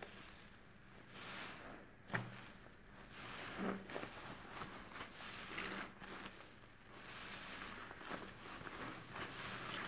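A soapy bath sponge squeezed and kneaded by rubber-gloved hands in a basin of thick detergent foam: wet squishing and crackling of suds in repeated surges, with a sharp click about two seconds in.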